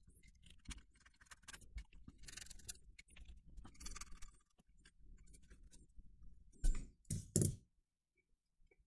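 Allen-key bit turning small hex screws out of a metal amplifier case: light clicks and scraping of the bit in the screw heads, with two louder knocks about seven seconds in.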